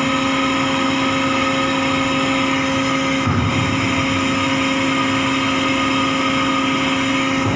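Ship's deck machinery running with a steady drone and a constant pitched hum that does not change.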